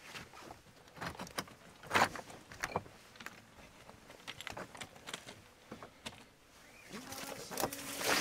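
Footsteps on a rocky limestone path: irregular crunches and scrapes of boots on loose stone, loudest about two seconds in and again near the end.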